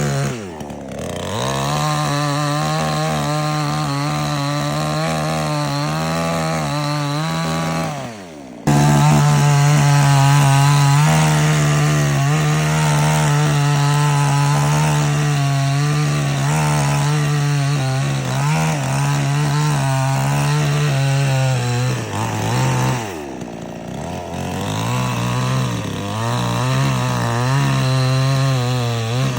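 Petrol chainsaw running at high revs, as when sawing through wood. The engine note falls and climbs back about a second in and again near the end, and cuts off abruptly for a moment about eight seconds in before resuming at full speed.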